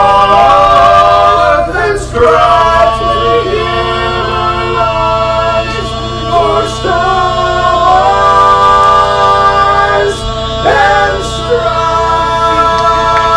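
Male a cappella quartet singing through microphones, holding long sustained chords that move to a new chord every two to three seconds: the drawn-out closing chords of the song.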